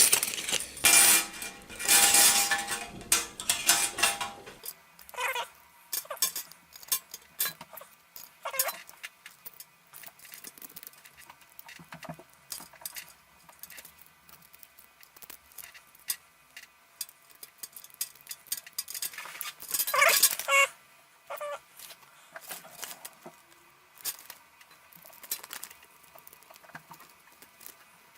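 Lock pick and tension wrench working in a practice padlock: small metallic clicks, scrapes and rattles. There is heavier handling noise for the first few seconds and a louder cluster of rattling about twenty seconds in.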